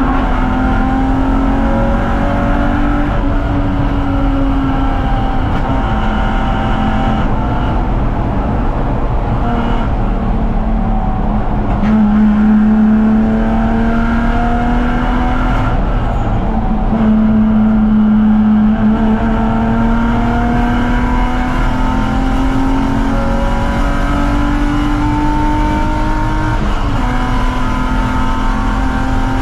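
BMW 330ci's inline-six racing engine running hard on track, its note slowly climbing and then dropping back several times as the car accelerates, shifts and slows for corners.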